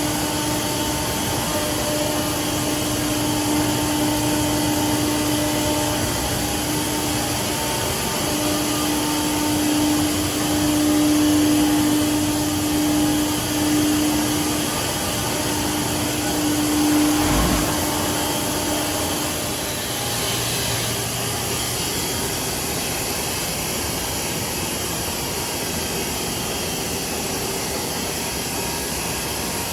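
A machine running with a steady hum, over a steady rushing noise; the hum stops about two-thirds of the way through and the rushing noise carries on.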